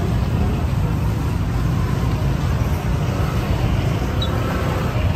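Steady low rumble of busy street noise, like road traffic, with no clear voices standing out.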